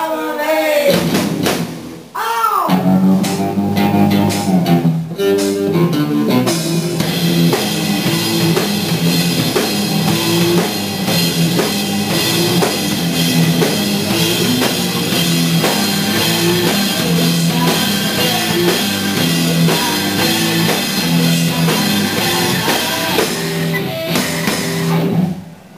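Live rock band playing a repeating riff on drum kit, electric guitar and bass, with a sweeping guitar slide in the first couple of seconds. The music cuts off abruptly near the end.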